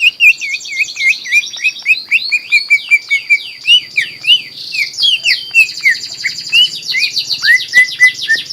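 Green leafbird (cucak ijo) in full song: a rapid, continuous stream of quick chirps and slurred whistles, many sweeping downward, with no pause.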